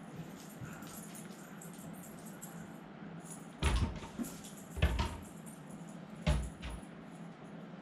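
Cats leaping at a laser dot and striking wooden cupboard doors and drawers with their paws: three dull thumps a little over a second apart, starting about halfway through.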